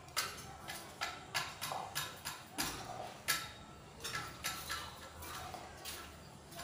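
Irregular sharp taps or clicks, about two a second, some followed by a brief ringing tone.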